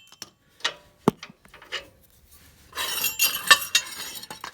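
Small metal parts clinking and tapping: a cotter pin and steel pins being worked out of the mower deck's front attachment bracket. A few separate clicks come first, then a busier run of clinking in the second half.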